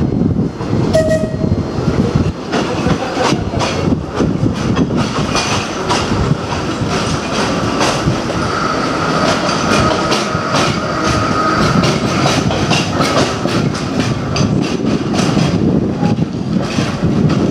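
Narrow-gauge open-top double-deck electric tram rolling slowly past on a curve, its wheels clicking over rail joints and points. A steady high squeal from the wheels on the curve sounds for a few seconds in the middle.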